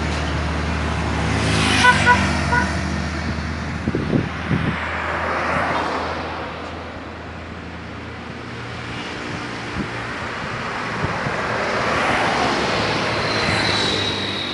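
Road traffic on a highway with diesel trucks passing. A truck's engine hum fades as it drives away, then traffic noise builds again toward the end as more trucks approach.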